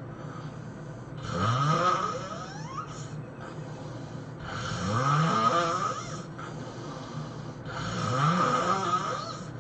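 A sleeping man snoring: three loud snores about three seconds apart, each rising in pitch, with quieter breathing between them.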